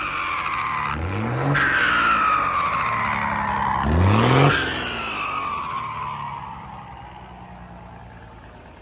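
Mercedes-Benz 1516 truck's turbo-diesel engine revved twice in quick blips, each followed by a long falling turbo whistle, the second rev the loudest; the sound then dies away.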